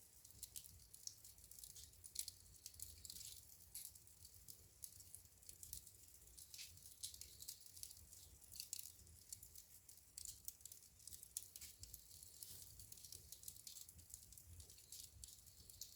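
Wood fire burning in a fireplace, crackling faintly with many small irregular pops and snaps over a low steady rumble.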